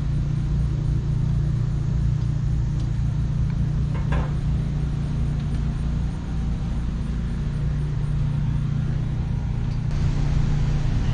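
An engine running steadily, a low even drone with no change in pitch.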